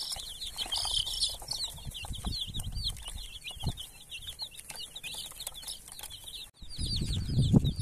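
A flock of baby chicks peeping continuously, rapid high cheeps overlapping one another, with scattered soft taps. Near the end the sound cuts, and a louder low rustling comes in beneath the peeping.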